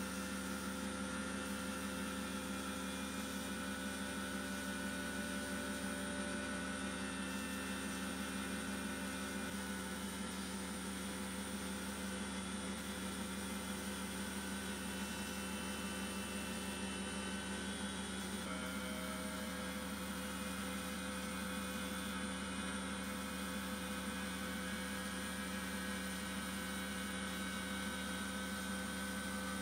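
Abrasive blast cabinet in use, blasting rust off steel bayonet scabbard parts: a steady hiss of the air and grit stream over a constant machine hum.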